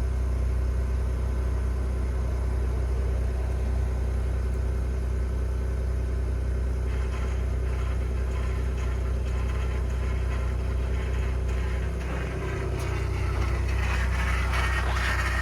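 2021 Ford F-150 PowerBoost hybrid's 3.5-litre twin-turbo V6 running in park on a −20 °C cold start, a steady low hum with a grinding, cavitating noise. A rougher, higher layer joins about halfway through and grows near the end. The noise goes away when the truck is put in reverse or drive.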